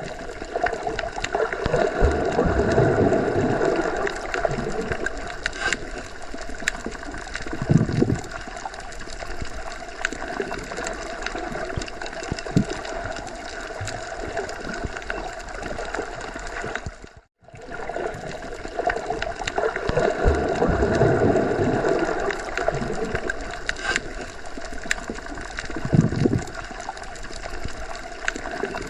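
Underwater sea ambience: continuous watery noise with slow, low swells and occasional short surges. It cuts out briefly about 17 seconds in, then the same stretch repeats as a loop.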